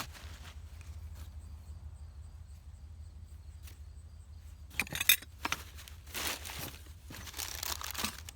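Small metal objects clinking and knocking as they are handled among glass, with a cluster of sharp clinks about five seconds in, the loudest a single hard clink. Rustling handling noise follows, over a steady low hum.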